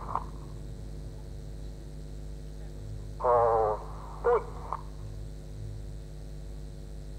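Steady electrical hum of a radio audio feed, broken about three seconds in by a short, distorted, wavering radio call from the Red Arrows pilots, then two brief clipped calls a second later.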